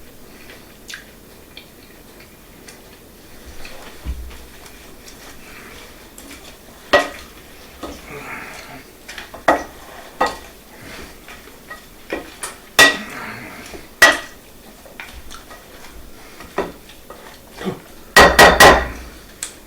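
Spoon clinking and scraping against cookware as bread stuffing is stirred, with scattered knocks and a quick run of loud clatters near the end.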